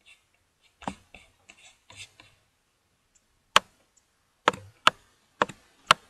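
Computer mouse clicking while paging and scrolling through a web page: a few soft clicks in the first couple of seconds, then five sharp, loud clicks in the last two and a half seconds.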